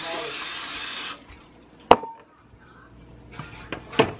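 Aerosol cooking spray hissing steadily for about a second, then cut off. A single sharp knock follows about two seconds in, with a few lighter kitchenware knocks near the end.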